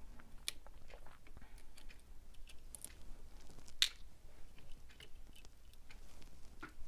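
Small scattered clicks and scrapes of a screwdriver tip and fingers working at the plastic housing of an HO scale model locomotive's motor, prying out a brush spring and carbon brush, with one sharper click a little under four seconds in.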